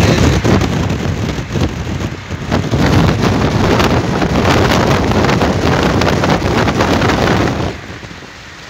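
Wind rushing and buffeting the microphone through a car's lowered side window at highway speed, mixed with road noise from the wet highway. It falls away sharply near the end.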